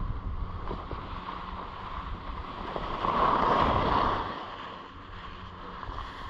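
Skis sliding over packed snow, with wind buffeting the action camera's microphone. The scraping swells for about a second in the middle as the skier turns.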